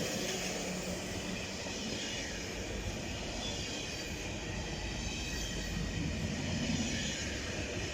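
A train rolling past, with the steady noise of wheels on the rails.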